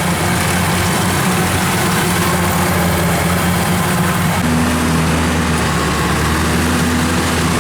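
Heavy diesel engine of a Kubota DC-93 combine harvester running under load as it pulls a tractor stuck in mud. The engine note shifts to a deeper, steadier hum about halfway through.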